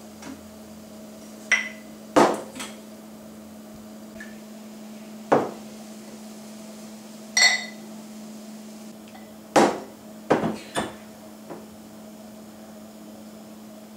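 Glassware being handled at a kitchen counter: about ten sharp knocks and clinks as a shot glass and a drinking glass are taken out and set down, spread irregularly. One clink rings briefly, like glass on glass, about seven seconds in.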